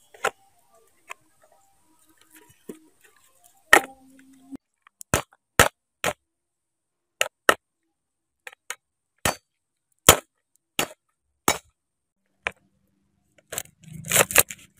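Cleaver chopping lemongrass stalks on a wooden chopping board: single sharp knocks at uneven intervals, about a dozen, then a quicker run of crunchier cuts near the end.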